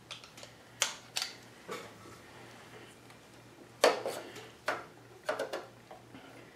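Scattered light metallic clinks and knocks, the loudest about four seconds in, from a pump oil can and a hex key handled against the cast-iron cross slide of a South Bend 13-inch lathe while it is oiled and its gib adjusted.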